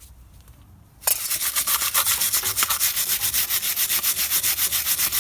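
Hand wire brush scrubbed over a steel brake caliper assembly in quick, even back-and-forth strokes, starting about a second in: cleaning rust and grime off the caliper before new pads go in.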